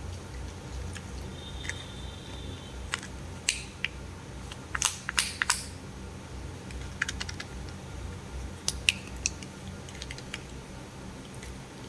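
A Kinder Surprise egg's plastic toy capsule and wrapper being handled: scattered sharp clicks and crackles, with a cluster of louder snaps about five seconds in and another pair near nine seconds, over a steady low hum.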